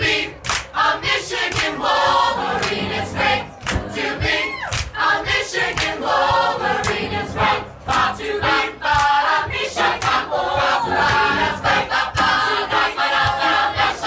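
A large crowd singing together, many voices at once, with frequent sharp hits cutting through.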